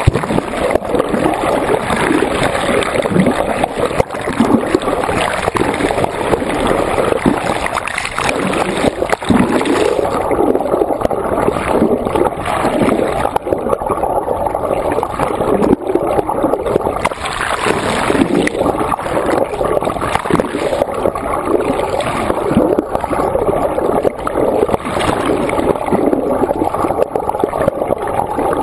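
Water rushing and churning past a GoPro held underwater from the side of a moving raft, with an uneven, constant sloshing.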